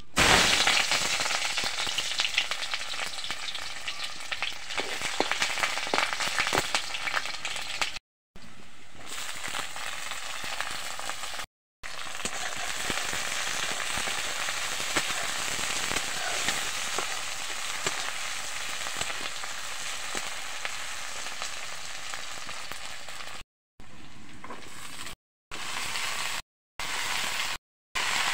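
Hot oil in a steel wok sizzling and crackling, loudest at the start as ingredients hit it, then chopped greens and chillies frying while a metal spatula stirs them. The sound cuts off abruptly several times.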